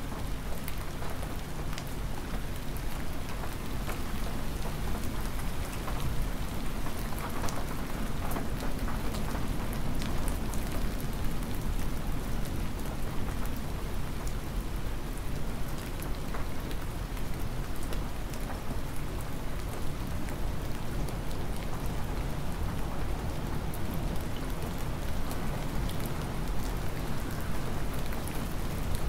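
Hard, windy rain falling steadily, with many close drops ticking sharply over a dense hiss and a steady low rumble underneath.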